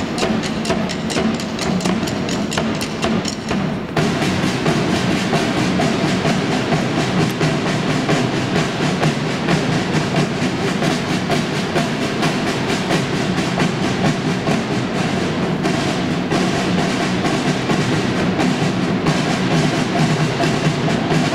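A drum line playing marching side drums with sticks in unison: sharp, evenly spaced stick clicks at first, then fuller, dense drumming from about four seconds in.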